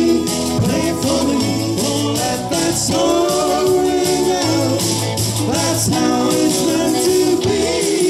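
Loud rock 'n' roll music with a steady beat, a bass line and a melody line over it.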